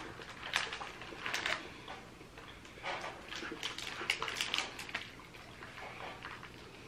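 Plastic snack wrapper crinkling and rustling in the fingers as it is handled and opened, in scattered crackles that are busiest between about three and five seconds in.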